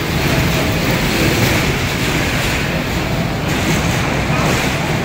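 R68A subway train moving out along the platform: a steady, loud rumble of wheels on the rails and the running train.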